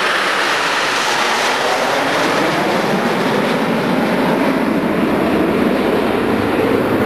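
Formation of Aermacchi MB-339 jet trainers, each with a single Rolls-Royce Viper turbojet, passing overhead: a loud, steady jet noise whose pitch falls gradually as the formation goes by and draws away.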